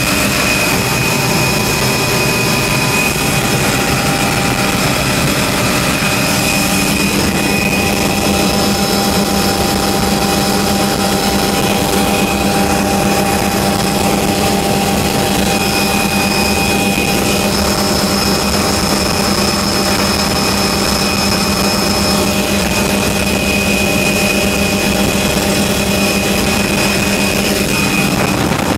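Helicopter in cruise flight, heard from inside the cabin: steady engine and rotor noise with a low hum and a high-pitched whine that hold steady.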